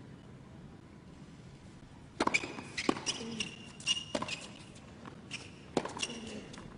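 Tennis rally on an indoor hard court, starting about two seconds in: sharp racket-on-ball strikes at an irregular pace, mixed with short high squeaks of shoes on the court surface.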